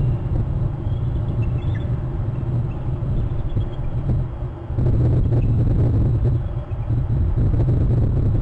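A low, steady rumble, louder from about five seconds in, with faint calls of bald eagles over it: short, high, chittering notes that step downward, about a second in and again near the middle.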